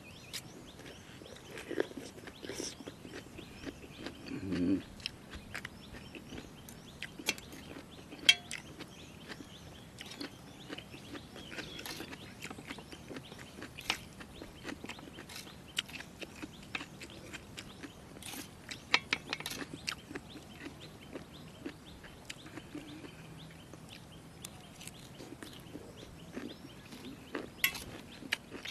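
A person chewing and eating jellyfish salad, with scattered short clicks of a spoon against a dish and birds calling in the background.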